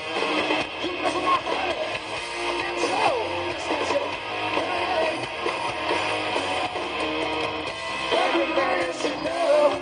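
Live rock band playing at full volume, electric guitars to the fore over drums and bass.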